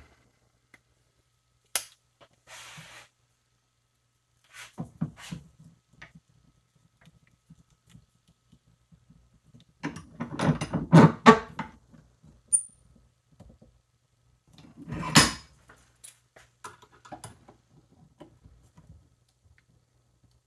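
Irregular metal clicks, knocks and clanks from a bench vise and hand tools as a folding knife is clamped in the jaws and the vise handle is turned. The loudest clatter comes about ten seconds in, and a sharp knock about fifteen seconds in.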